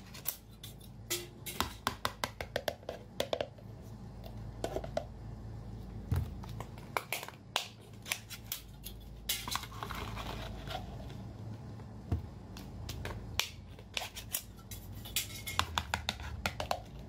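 Glass jars being opened and handled, their lids and sides clicking and clinking in quick clusters of sharp taps, as sauced food is tipped out of them onto a plate.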